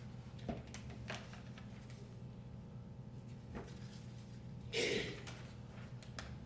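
Quiet room tone with a steady low electrical hum, broken by a few faint clicks and one brief, louder rustle or knock about five seconds in.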